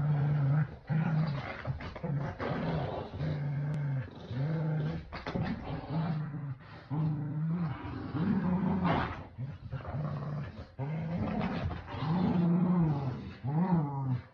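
Dogs, a Keeshond and a Boston Terrier, play-growling as they tug at a plush toy: a long run of low growls, each about a second long with short breaks, several swelling up and down in pitch.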